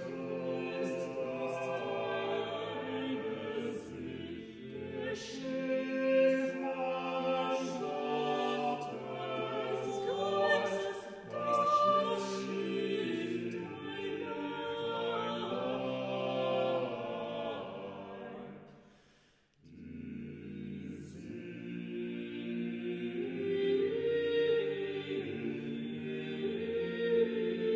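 Unaccompanied vocal quartet of two women's and two men's voices singing a German choral piece in four-part harmony, with crisp sibilant consonants. The singing dies away at a phrase end about two-thirds through and starts again moments later.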